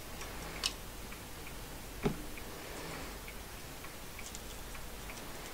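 Faint, fairly regular ticking a few times a second over a steady low hum, with a sharp click about half a second in and a duller knock about two seconds in.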